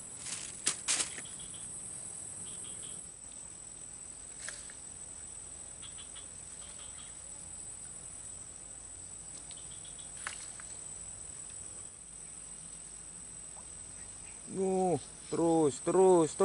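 Insects droning in a steady high-pitched note from the surrounding vegetation, with a few faint clicks. A man's voice comes in briefly near the end.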